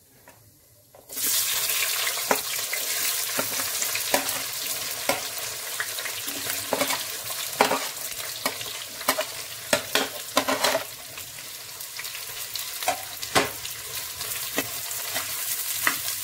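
Sliced onions hitting hot oil in a clay pot start sizzling suddenly about a second in, then keep up a steady frying hiss. Repeated scrapes and clicks of a spoon and spatula tipping in and stirring the onions sound over it, busiest in the middle.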